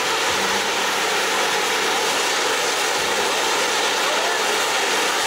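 Ground firework fountains spraying fans of sparks, a loud steady rushing hiss that holds at an even level.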